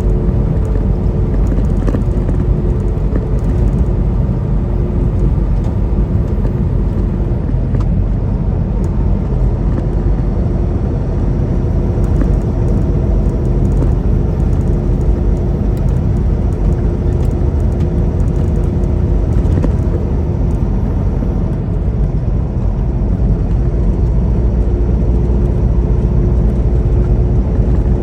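Semi truck cruising at highway speed, heard inside the cab: a steady low engine drone mixed with road and tyre noise and a constant hum.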